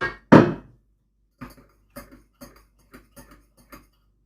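Two loud sharp knocks, then a run of lighter, quicker taps, about four a second: a kitchen knife chopping cilantro on a cutting board.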